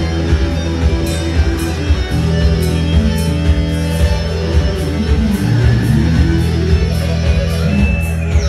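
Music led by electric guitar over bass, with a steady beat of about two strikes a second.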